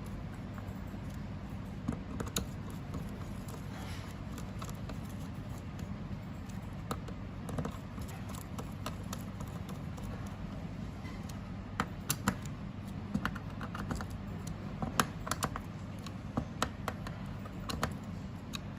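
Screwdriver tightening small screws into a camera frame board: scattered light clicks and taps of the tool and screws, coming more thickly in the last third, over a steady low hum.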